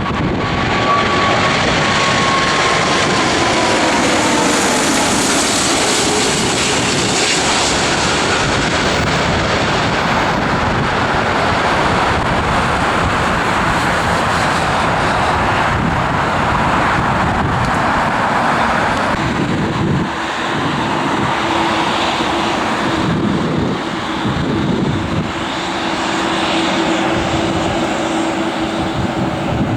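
Jet airliner's engines passing loudly, with a whine that falls in pitch over the first few seconds as it goes by. A steady low drone comes in about two-thirds of the way through.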